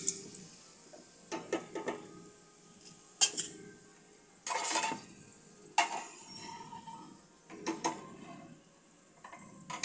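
A steel slotted spoon clinks and scrapes against a frying pan and a steel plate as fried onion slices are lifted out of the oil and tipped off, about eight separate clinks and one longer scrape. Faint oil sizzle in the first second or so.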